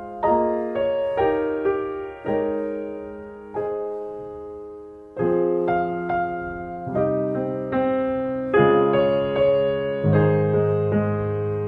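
Slow solo piano music: single notes and chords struck and left to fade.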